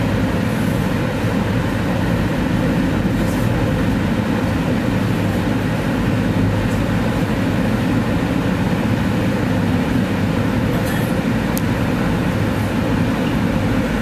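Amtrak passenger train running at speed, heard from inside a passenger car: a steady rumble of wheels on the rails, with a few faint clicks.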